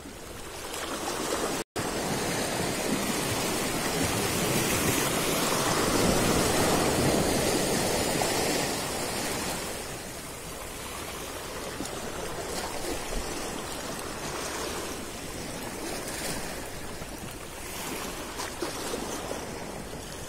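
Small sea waves washing against a concrete jetty: a steady rush of surf that swells for a few seconds and then eases, with a momentary dropout about two seconds in.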